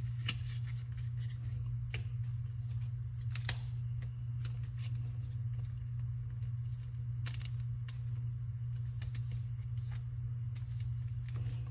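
Pokémon trading cards being handled and flipped through, giving scattered light clicks and snaps, over a steady low hum.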